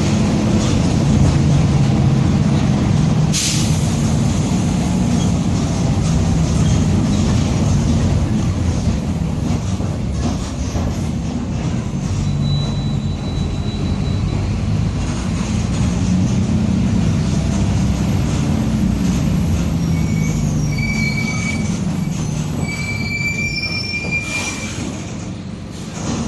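Mercedes-Benz OF-1722M bus under way, heard on board: a steady drivetrain rumble with the growling differential. There is a sharp knock about three seconds in, and brief high squeals near the end as the sound eases off.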